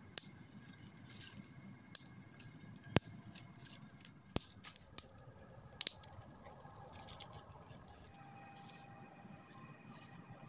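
Insects chirring steadily, with about seven sharp snaps and clicks in the first six seconds as dry twigs are broken and worked by hand, the loudest about three seconds in.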